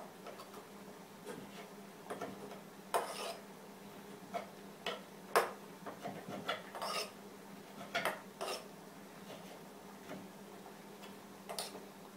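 A knife scraping strips of spätzle dough off a wooden board into a pot of boiling water, with irregular short scrapes and knocks of the blade on the wood every second or so. A faint steady hum runs underneath.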